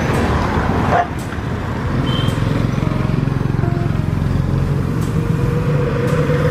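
Motorbike engine running steadily close by, with a brief dip in level about a second in.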